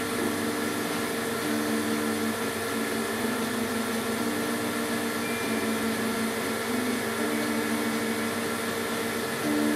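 CDC 9-track tape drive running its self test: the steady whir of its air pump, with low humming tones that step up and down in pitch every half second to second.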